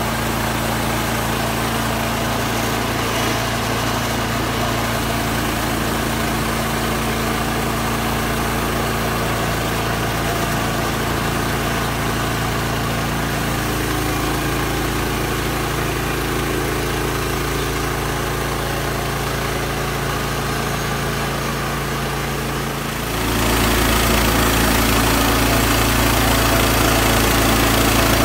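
An engine running steadily at an even speed. About 23 seconds in the sound steps up louder, with a stronger low hum.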